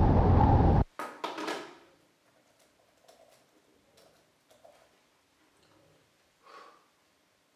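Loud static hiss played back from a handheld digital voice recorder, cutting off abruptly under a second in, followed by a few crackles. Then faint clicks of laptop keys being typed.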